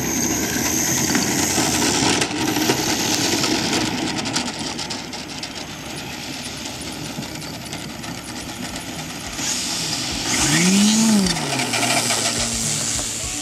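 Engine of a SebArt 2.2M radio-controlled aerobatic model plane running with its propeller turning, with a quick throttle rev up and back down about eleven seconds in.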